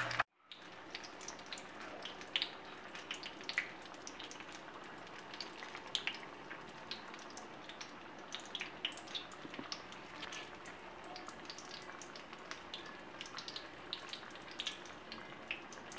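Turon, banana and jackfruit spring rolls, deep-frying in hot oil in a pan: a steady sizzle with frequent small crackles and pops.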